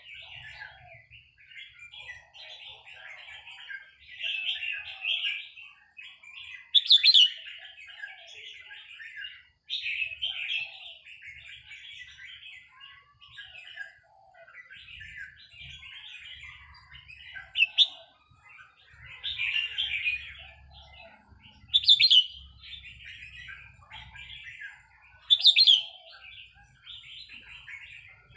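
Red-whiskered bulbul singing: a steady run of short chattering, warbling phrases, broken by four loud, sharp notes spaced several seconds apart.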